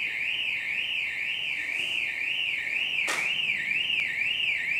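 An electronic alarm sounding, its tone warbling steadily up and down about twice a second. A single sharp click about three seconds in.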